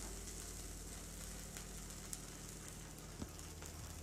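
An oats uttapam sizzling steadily in oil on a hot tawa after being flipped, with a faint crackle, as its second side cooks. There is one faint click about three seconds in.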